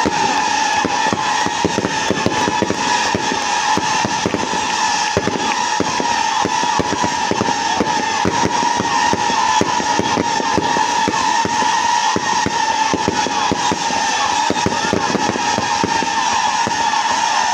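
Fireworks and firecrackers going off in a dense, continuous crackle of rapid bangs, over a steady high tone.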